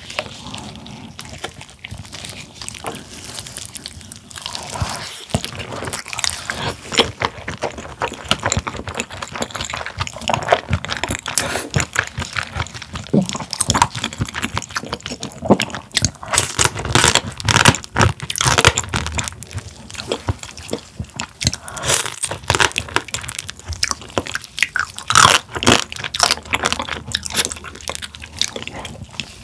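Close-miked eating of spicy marinated raw crab (yangnyeom gejang): the shell is pulled apart by gloved hands, bitten and chewed, in dense runs of crunching and cracking.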